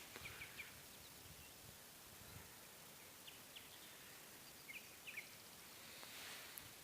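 Faint outdoor background hiss with scattered short, high bird chirps in small clusters, and a soft hissing swell near the end.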